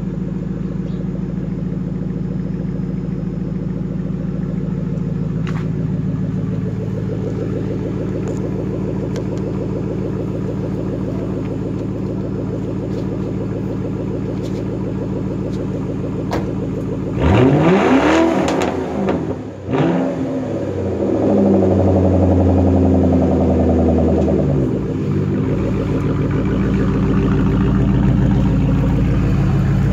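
1997 Lincoln Mark VIII LSC's 4.6-litre DOHC V8 running through a muffler-deleted exhaust on a cold start: it idles steadily, is blipped twice in quick succession about two-thirds of the way in, holds a higher idle for a few seconds, then settles back to an even idle.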